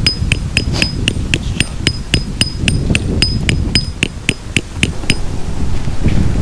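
Tent peg being hammered into the ground: a fast, even run of ringing metal-on-metal strikes, about four a second, that stops about five seconds in. Steady wind rumbles on the microphone underneath.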